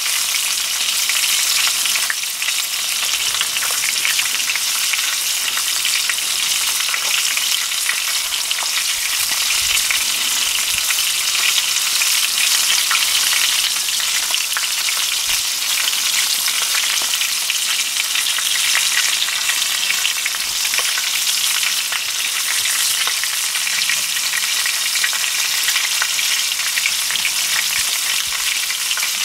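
Chicken pieces frying in hot oil in a cast-iron pan under a cast-iron grill press: a steady sizzle with fine crackling pops throughout.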